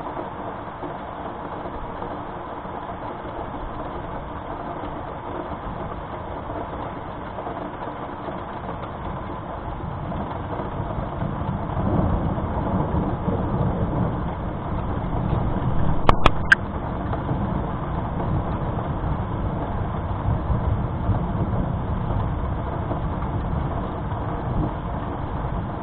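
Steady rain with a low rumble of thunder that builds about halfway through and keeps rolling. A few sharp clicks come about two-thirds of the way in.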